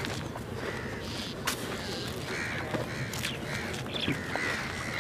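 Crows cawing repeatedly, several calls in quick succession, over a steady outdoor background.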